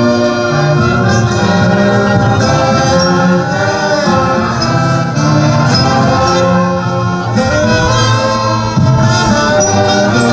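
Music: a choir singing with instrumental accompaniment, continuous and steady in level.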